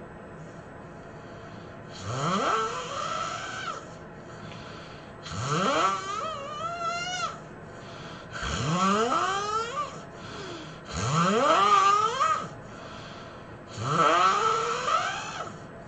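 A person snoring loudly: five long snores about three seconds apart, each rising in pitch as it goes.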